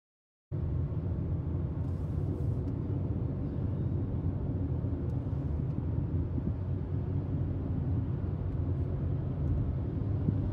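Steady low rumble of a car driving at highway speed, heard from inside the cabin. It cuts in abruptly about half a second in.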